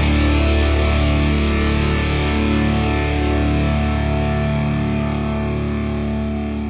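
Instrumental ending of a rock song: distorted electric guitar chords held and ringing out, beginning to fade near the end.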